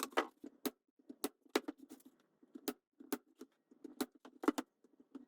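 Irregular light clicks and taps, a few a second, sharp and short.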